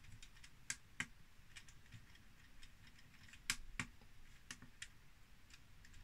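Scattered clicks of the small plastic push buttons on a cheap toy mini projector being pressed, about ten in all, the loudest pair about three and a half seconds in. No menu voice or music answers them: the projector has crashed.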